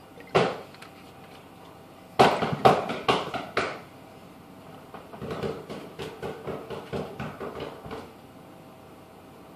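Bottles and shot glasses being handled and set down on a table: a single knock, then a cluster of loud knocks and clinks about two seconds in, then a run of lighter, quick taps.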